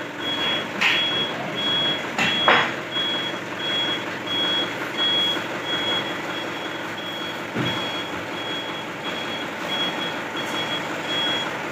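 Truck reversing alarm beeping steadily, a high single-tone beep about twice a second, with a few sharp knocks in the first few seconds.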